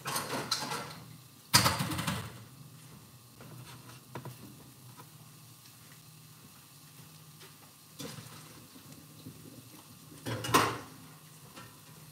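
Stainless steel pot and dishes clattering at a kitchen sink as noodles are drained. A loud metal clank comes about one and a half seconds in, and another loud clatter about ten and a half seconds in.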